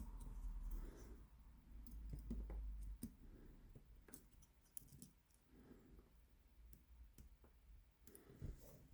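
Faint, irregular small clicks of a Covert Companion tool working the pins of an 8-pin tubular cam lock, with some low handling noise in the first few seconds.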